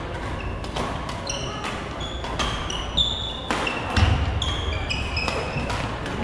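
Badminton play on a wooden gym floor: sharp racket hits on the shuttlecock and short, high sneaker squeaks from players' shoes, from more than one court, with a heavy footfall about four seconds in.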